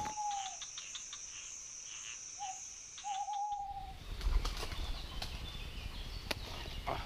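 Night ambience: a steady high-pitched drone with three hoots of an owl, the last one longest. About three and a half seconds in it cuts to daytime woodland with birds calling and a faint low rumble.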